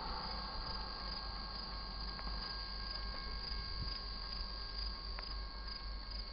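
A freight train's rumble dies away in the first moment, leaving a quiet background of steady cricket chirring and a few faint, thin steady tones. Two sharp clicks are heard, about two seconds in and again near the end.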